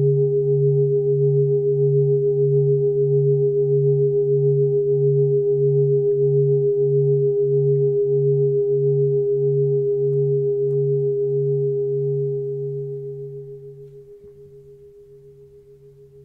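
Singing bowl sounding a steady, wavering hum with a low pulsing tone and a higher ring above it, fading away from about twelve seconds in.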